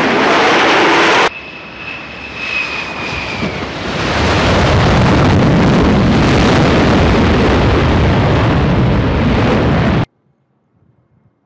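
Jet engine noise on an aircraft carrier flight deck from an F/A-18's twin engines. It is loud, breaks off about a second in to a quieter stretch with a faint high whine, then comes back loud and steady from about four seconds in before cutting off abruptly near the end.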